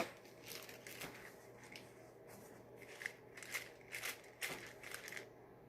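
Faint, scattered clicks and crackles of slime being pressed and pulled with the fingers.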